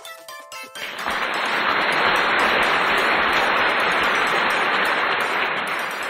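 Audience applause that starts about a second in, holds steady, and fades near the end.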